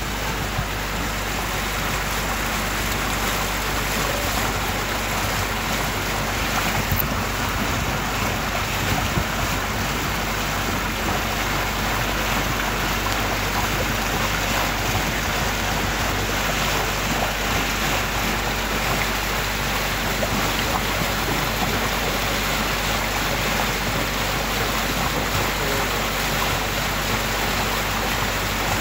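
Motorboat cruising across a lake: a steady engine drone mixed with the rush of water along the hull, unbroken throughout.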